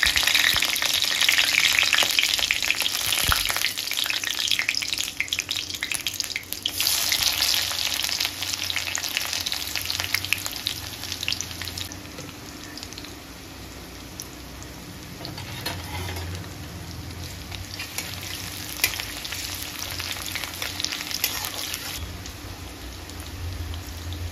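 Food sizzling in hot oil in a pan while being stirred, with occasional clicks of the spatula against the pan. The sizzle is loud for the first several seconds, then dies down to a softer crackle from about halfway through.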